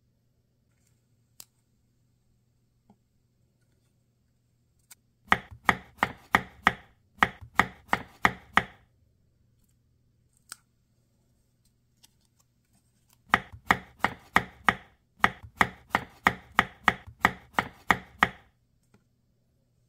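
Knife chopping on a cutting board in four quick runs of sharp, regular strokes, about three a second, with a few single light taps between.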